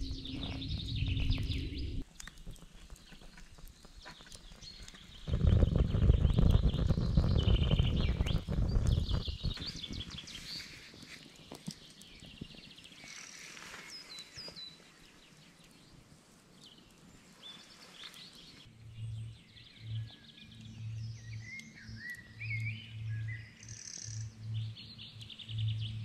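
Wild birds singing and chirping, several calls overlapping. A low rumble comes in briefly at the start and again, loudest, from about five to ten seconds in. Over the last third a low pulsing tone joins the birdsong.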